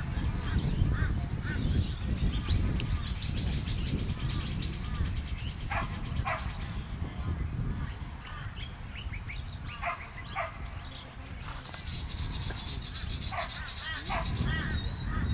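Short animal calls repeating every second or two over a steady low rumble, with a fast high trill from about twelve seconds in until near the end.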